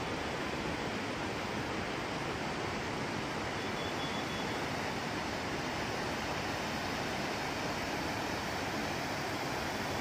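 Rushing water of a boulder-strewn mountain stream fed by a waterfall, a steady, unbroken rush of white water.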